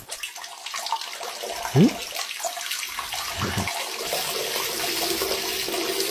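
A stream of urine splashing steadily into toilet bowl water, a cartoon sound effect, with a short rising tone about two seconds in.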